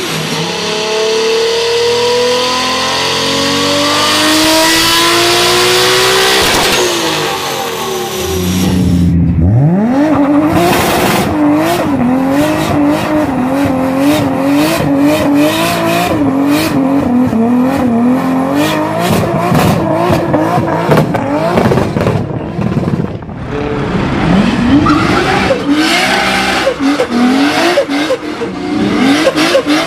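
A turbocharged car engine on a dyno winds up in one long pull, its pitch climbing steadily for about eight seconds before it cuts off. Then a Toyota Supra's engine is held bouncing against the rev limiter through a tyre-smoking burnout, with tyre squeal, and near the end a Nissan S14 Silvia burnout follows with the same rapid rise and fall of revs.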